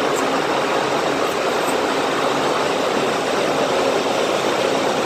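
Taiwan High Speed Rail 700T train rolling along the station platform: a steady, even rushing noise of wheels and running gear.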